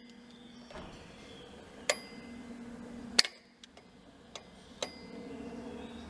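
Sharp metallic clicks and taps, about five of them, each with a short ring and the loudest a little past halfway: a bicycle brake lever's metal clamp and tools knocking against the handlebar as the lever is refitted.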